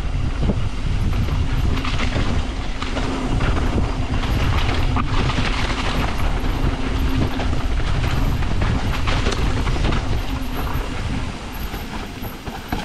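Mountain bike descending a dirt trail, heard from a camera on the bike or rider: a steady rush of wind and tyre noise with a constant clatter of chain and frame rattling over bumps, easing a little near the end.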